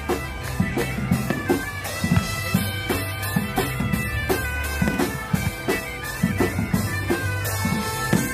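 Music with a steady drum beat under long held notes of a reed-like wind melody.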